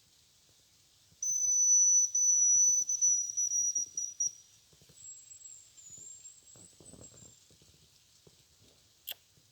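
Hazel grouse whistle: a thin, very high, steady whistled note held for about three seconds, then a fainter, higher note that dips briefly in the middle. A short click near the end.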